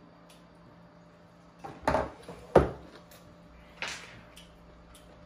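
Table-side handling knocks: two dull knocks close together about two seconds in, the second the loudest, then a lighter knock near four seconds.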